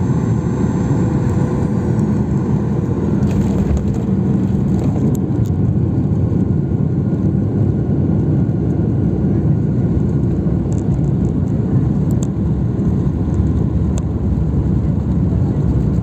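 Airliner cabin noise as the plane rolls along the runway after landing: a steady, loud low rumble of the jet engines and wheels on the runway, with a few faint rattles and clicks.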